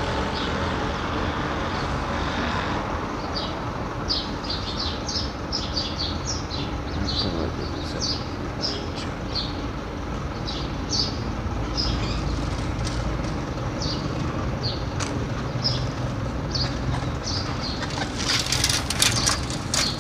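Street ambience: a steady low rumble of traffic, with small birds chirping over it in many short, repeated notes. Near the end comes a brief flurry of sharp clicks.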